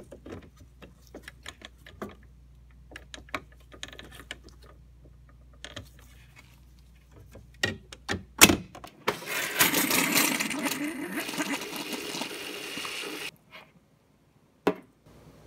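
Plastic clicks and knocks as a replacement water filter cartridge is pushed into its housing in a Whirlpool refrigerator, with two loud clicks about eight seconds in. Then the refrigerator's door dispenser runs water into a glass bowl for about four seconds, flushing the new filter, and the water stops abruptly.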